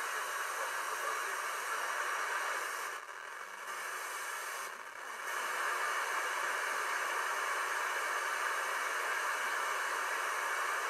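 Static hiss from a software-defined radio receiver on the 2-metre amateur band as it is tuned across the band. The hiss is steady but dips briefly twice, about three and five seconds in.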